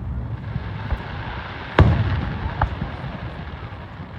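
Fireworks shells bursting in the air: one loud bang a little under two seconds in, then a smaller pop, over a steady low background rumble.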